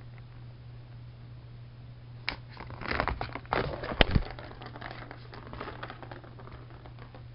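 A cat playing at a Turbo Track cat toy: scattered scratching and clicking in bursts from about two to four seconds in, with one sharp click about four seconds in and lighter ticking after, over a steady low hum.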